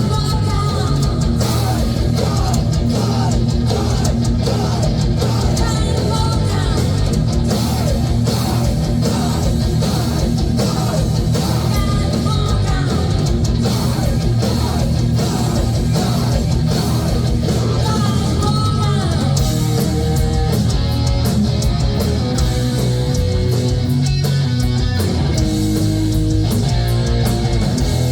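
Heavy metal band playing live: distorted electric guitars over a fast, driving drum kit.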